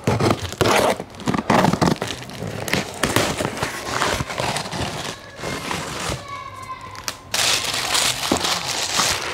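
Large scissors cutting through packing tape on a cardboard box, loudest in the first couple of seconds, followed by cardboard flaps and paper packing rustling and crinkling as the box is opened and unpacked.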